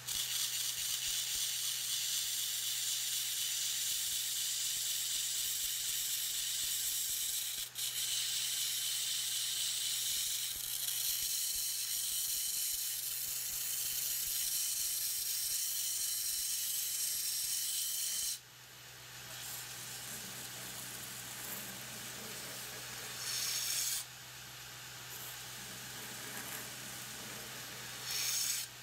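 Belt grinder grinding the edge of a stainless-steel yanagiba sashimi knife: a steady high hiss of steel on the abrasive belt over the motor's low hum. About 18 seconds in the blade comes off and only the running belt is left, with two short bursts of grinding near the end as the blade touches the belt again.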